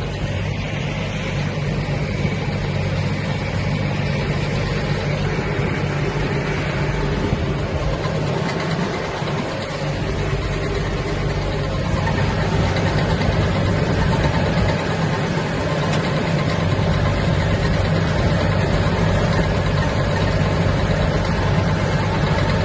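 Tractor engine running steadily while baling hay, with the baler's machinery running along with it; it grows a little louder about halfway through.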